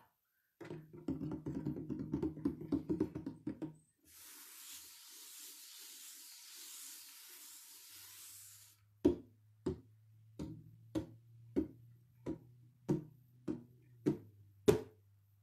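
A hand drum played for a freeze-dance game: a quick flurry of beats, a few seconds of steady hiss, then slow single beats a little under two a second. The beats stop shortly before the end, the signal to freeze.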